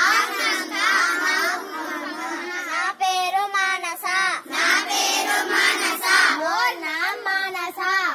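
Schoolchildren reciting short Odia phrases aloud in a sing-song chant, high young voices in short phrases broken by brief pauses.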